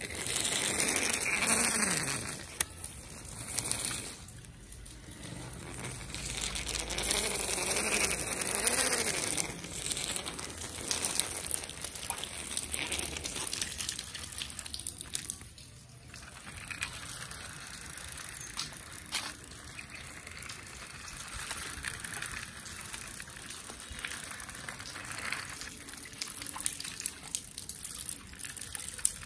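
Small plastic toy vehicles pushed by hand along a wet surface, their wheels rolling and splashing through water, in several long swells of hissing noise.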